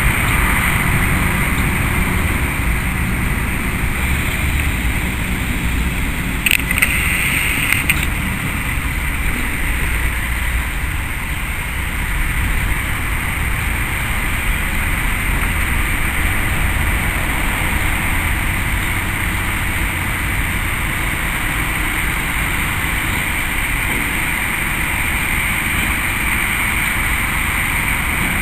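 Diesel shunting locomotive engine running steadily while it moves two tank wagons at walking pace, a continuous low rumble. About six and a half seconds in, a brief higher, brighter sound lasts for about a second and a half.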